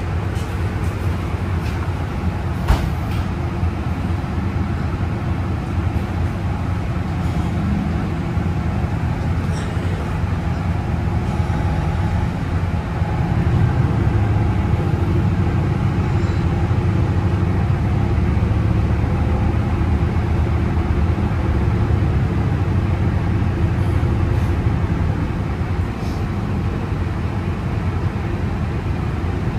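Steady low engine and road rumble of a moving city bus, heard from inside the cabin. It grows louder a little before halfway and eases a few seconds before the end, with a single sharp knock about three seconds in.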